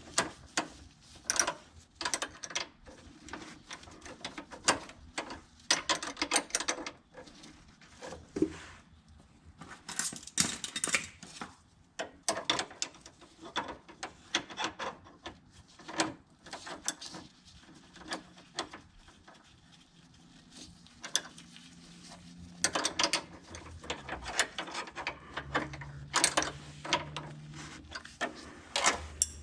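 Hand tools working on metal: irregular clicks and clanks with clusters of rapid clicking like a ratchet wrench. A short low hum comes in near the end.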